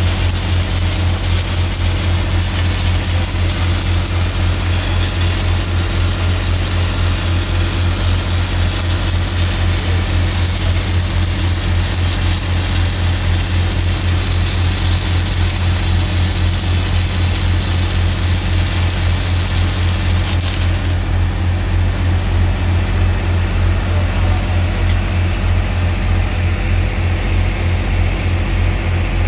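Miller Big Blue 600 diesel engine-driven welding generator running steadily under load, with the hiss and crackle of stick-welding arcs laying the capping pass on a 16-inch steel pipe. The arc crackle cuts off about three-quarters of the way through, leaving the welder's engine running on its own.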